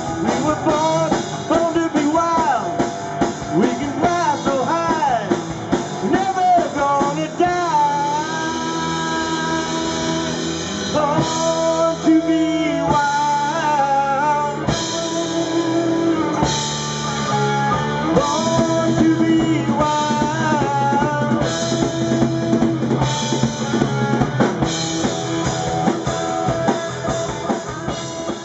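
Live rock band playing an instrumental break: an electric guitar lead with bent and held notes over drum kit and bass.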